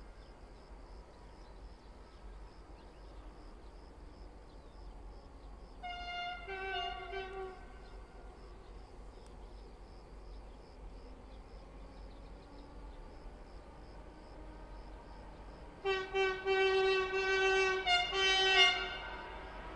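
Multi-tone air horn of a Renfe Class 335 diesel locomotive giving horn blasts as it approaches: a short blast stepping between two notes about six seconds in, then a longer run of louder blasts from about sixteen seconds that stops just before the end.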